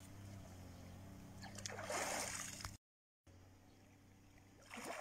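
Faint water splashing and sloshing from a person moving in a pond, with a louder splash about two seconds in and splashing picking up again near the end, broken by a brief dropout in the middle.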